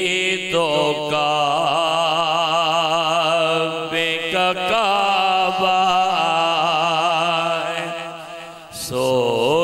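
A man singing an Urdu naat unaccompanied, stretching the words into long wavering melismatic notes. He breaks for a breath near the end and starts a new phrase.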